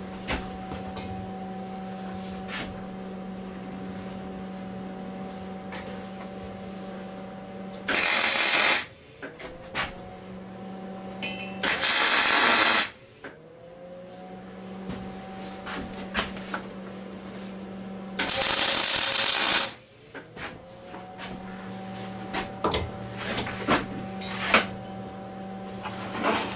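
Three short bursts of arc welding, each about a second long, tack-welding steel tube legs onto a striking anvil's base plate. A steady hum runs underneath.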